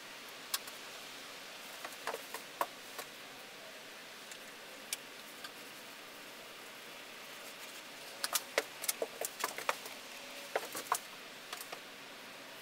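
Scattered light taps and clicks of a thin paintbrush dabbing paint onto a painted board, a few about two seconds in and a denser run from about eight to eleven seconds, over a steady hiss.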